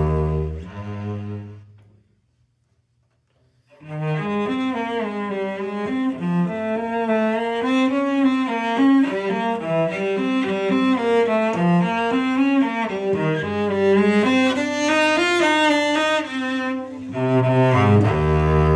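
Solo cello played with the bow: a low sustained phrase dies away about two seconds in, and after a pause of nearly two seconds a singing melody with vibrato starts in a higher register, dropping back to low notes near the end.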